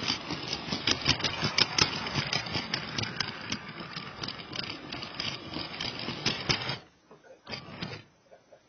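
Motorised Lego train with a Powered UP motor running on plastic track: a steady rattling clatter full of rapid clicks. It stops abruptly about seven seconds in, followed by two short rattles.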